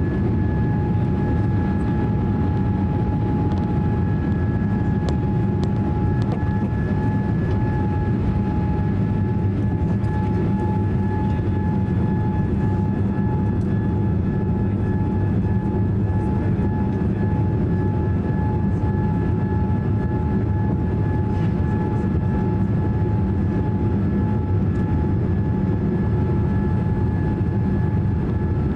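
Cabin noise of a Boeing 787-8 climbing out after takeoff: a steady roar from its GEnx turbofan engines and the airflow over the fuselage, with an unchanging high whine on top.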